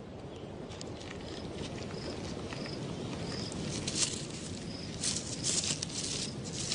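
Forest ambience: a steady hiss of background noise with a short, high chirp repeated several times during the first few seconds. Rustling and crackling, as of movement through dry leaf litter, comes in bursts over the last two seconds.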